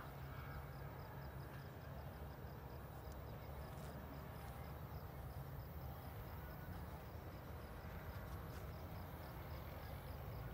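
Quiet outdoor background: a steady low rumble, with a faint high-pitched chirp repeating evenly about five times a second.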